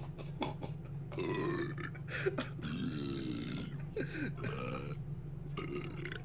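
A recording of burps played back over voice chat: a string of long belches, one after another, several of them sliding in pitch, over a steady low hum.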